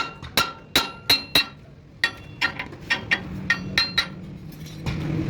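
Hammer striking steel repeatedly, each blow with a ringing clang: about five loud strikes in the first second and a half, then a run of lighter, quicker taps.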